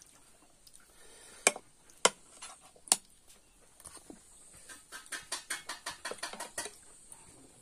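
Eating noises: metal spoons clicking in a plastic bowl. There are three sharp clicks about half a second to a second apart in the first three seconds, then a quick run of small clicks for about two seconds near the end.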